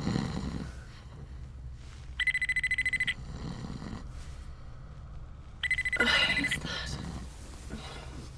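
Telephone ringing twice, each ring a trilling tone about a second long, with a pause of about two and a half seconds between them. A burst of noise overlaps the second ring.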